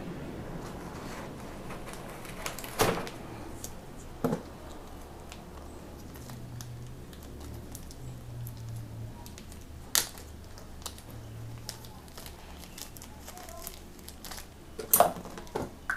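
Hands handling packaging and sample containers: small crackles with a few sharper clicks and knocks, one about three seconds in and the loudest near the end.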